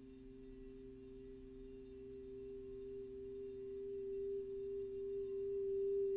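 Crystal alchemy singing bowl played with a mallet: one steady tone swells gradually louder, over a second, lower steady tone.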